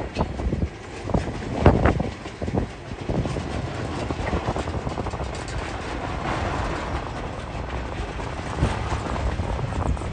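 Empty freight flat wagons rolling past, wheels clacking with several sharp knocks in the first three seconds, then a steady rumble.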